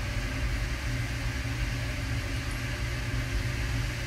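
A steady low mechanical hum with no breaks or changes.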